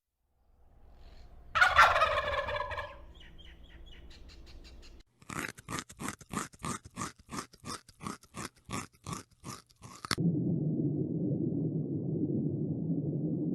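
Domestic fowl calling: one loud cry about two seconds in, then from about five seconds a run of sharp, harsh calls at three to four a second that stops abruptly near ten seconds. A steady low rumbling noise follows.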